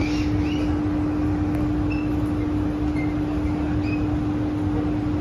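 Steady ventilation hum inside a CT251 metro car standing at a platform with its doors open: air-conditioning fan noise with one constant low tone.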